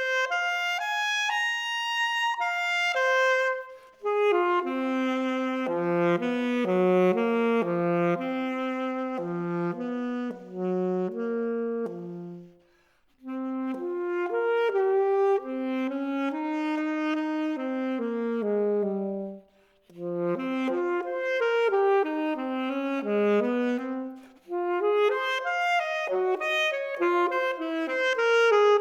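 Solo unaccompanied saxophone playing a fast, jazz-inflected line of short, separate notes that leap across its range, breaking off twice for brief silences.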